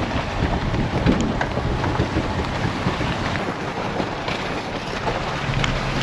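Pickup truck driving on a wet, muddy off-road trail, heard from inside the cab: steady low engine and drivetrain rumble with tyre and mud noise and scattered small knocks and rattles.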